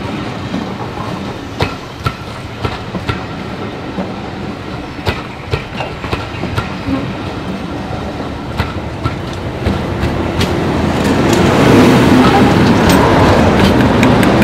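Passenger coaches rolling past close by, their wheels clicking over the rail joints with a steady rumble. About ten seconds in, the Class 37 diesel locomotive 37688 draws level, and its English Electric V12 engine grows loud and dominates.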